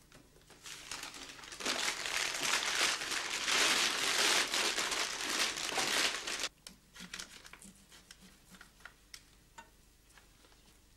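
Brown paper bag crinkling as a hand handles it, dense and loud for about six seconds, then stopping abruptly. Faint scattered small clicks and taps follow.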